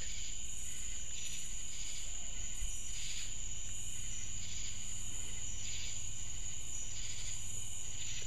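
Night insects such as crickets calling: a steady high-pitched trill, with a second pulsing call repeating about once a second.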